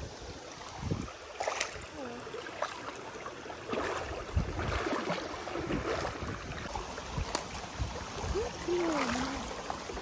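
Bare feet wading through a shallow, rocky river, water splashing and sloshing around the ankles with each uneven step.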